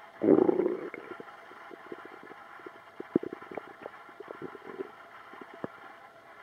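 Human stomach gurgling: a loud bubbling rumble just after the start, then a string of small pops and gurgles.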